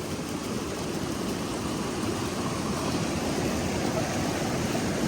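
Steady rushing of running river water, getting slightly louder towards the end.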